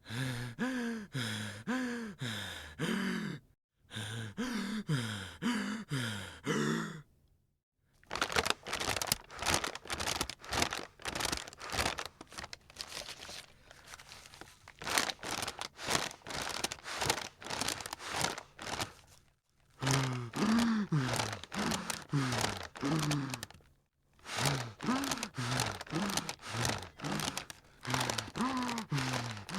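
A person breathing quickly in and out of a paper bag, the bag crinkling with each breath. The breaths come in runs of about two a second broken by short pauses; in the opening and closing stretches many exhalations are voiced with a falling pitch, while the middle stretch is faster unvoiced puffing.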